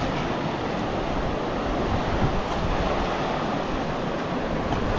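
Fast mountain river rushing over rapids: a steady, even sound of running whitewater.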